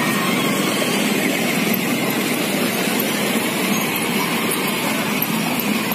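Battery-powered children's ride-on toy car driving, a steady drone from its electric motor and plastic wheels rolling on asphalt.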